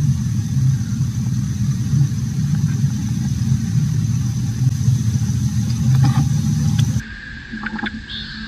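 A steady low engine rumble, like a motor vehicle running near the roadside, with a thin high whine over it. About seven seconds in it cuts off abruptly, leaving a quieter high, steady buzzing and a few clicks.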